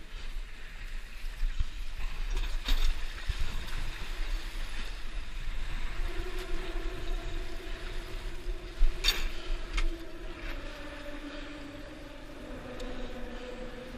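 Wind rumble and choppy water slapping against a small boat and wooden pilings, with a few sharp knocks, the loudest about nine seconds in. From about six seconds in, a distant engine hum sets in and slowly drops in pitch.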